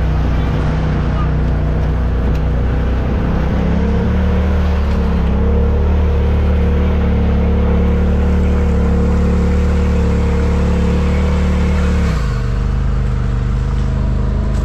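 Off-road vehicle's engine running under steady throttle, rising slightly in pitch about four seconds in, then dropping sharply as the revs fall near the end.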